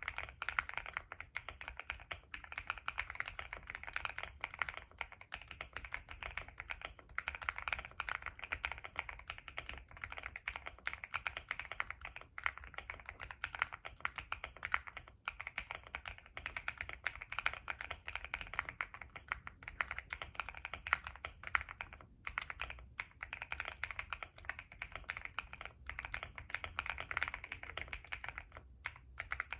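Continuous fast typing on a mechanical keyboard with stock CIY Naraka linear switches (POK stems) in a Monsgeek M1 with a POM plate, foam and Polyfil dampening, an IXPE layer and a tape mod. It gives a dense stream of muted key clacks with a few short pauses.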